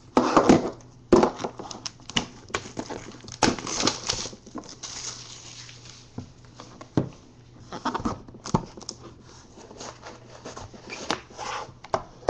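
Hands handling and opening a Topps Five Star trading-card box on a tabletop: irregular knocks and taps of the box against the table, with scraping and rustling in between.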